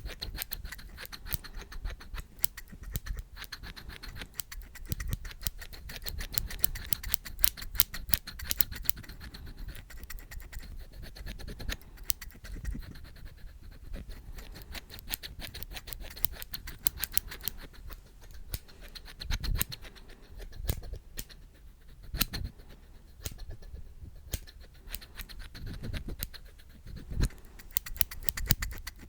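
Rapid light tapping and scratching on an object by hand: a dense run of quick, crisp clicks with a few duller knocks now and then.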